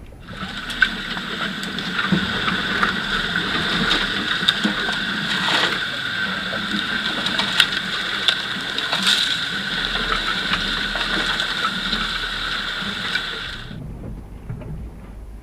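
Off-road 4x4 driving along an overgrown dirt trail: a steady mechanical running sound with scattered clicks and knocks. It cuts in abruptly and cuts out about fourteen seconds in.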